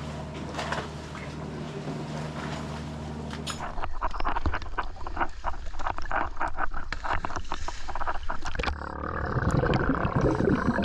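Steady low hum of the dive boat's engine with a few knocks on deck. Then choppy sea slapping and splashing against a camera held at the waterline. From about nine seconds in, muffled underwater bubbling from divers' scuba exhaust bubbles.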